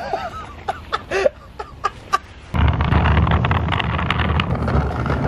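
A few short bird calls, then, about two and a half seconds in, a sudden loud rough rumble of wind and handling noise on a handheld microphone carried at walking pace.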